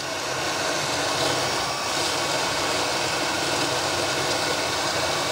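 1.4 kW BWD5-40 stainless steel variable-speed booster pump running steadily under heavy load, a constant hum with a hiss over it. It grows slightly louder over the first couple of seconds as the flow is raised toward 6,000 litres an hour, where the pump is at its maximum power.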